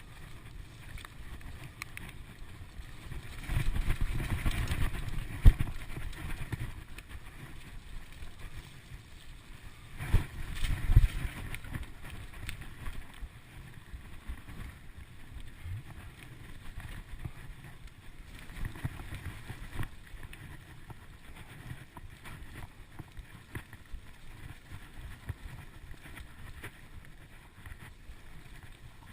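Mountain bike rolling along a forest trail: a steady rush of tyre and wind noise on the microphone with small rattles and clicks. There are two louder rough stretches of bumping and knocks, one a few seconds in and another about ten seconds in.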